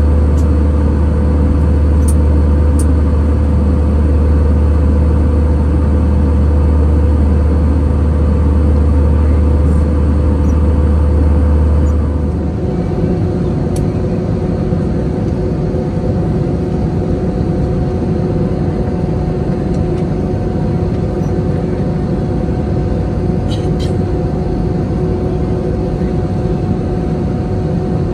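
Steady in-flight cabin noise of an Airbus A320 heard from a window seat over the wing: engine and airflow drone with a deep hum at cruise. About halfway through it changes abruptly to a lighter, differently pitched steady hum as the aircraft descends.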